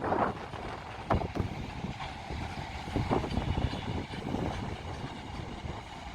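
Passing train: a steady rumble with scattered sharp knocks, some in pairs, as the wheels run over the rail.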